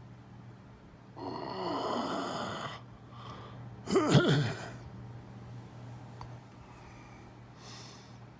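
A man snoring in his sleep: a rasping snore of about a second and a half, then a shorter, louder snort about four seconds in.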